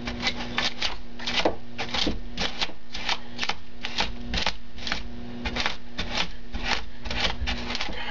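A hand tool gouging and scraping extruded foam board, a run of short, crunchy scratching strokes about twice a second at an uneven pace, as chunks of foam are dug out to carve a ravine.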